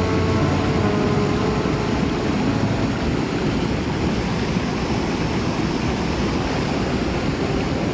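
Fast water of a small mountain stream rushing over rocks, a loud, steady hiss.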